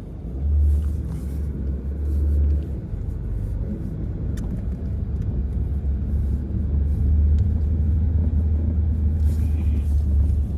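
Heavy low rumble of wind buffeting the microphone, steady throughout with a brief dip about two and a half seconds in.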